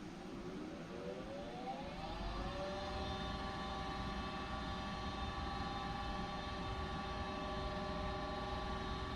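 Goodman high-efficiency gas furnace's draft inducer motor starting: a whine rising in pitch for about two and a half seconds as it spins up, then settling into a steady whirring hum, the first step of the furnace's start-up sequence before ignition.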